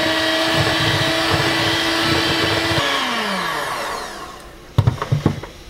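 Electric hand mixer beating thick cream cheese in a stainless steel bowl, its motor running at a steady pitch, then switched off about three seconds in and winding down. A few short knocks follow near the end.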